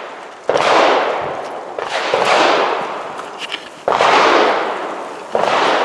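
Handgun shots: three loud single shots about half a second, four seconds and five and a half seconds in, each leaving a long fading echo, with fainter sharp cracks between them.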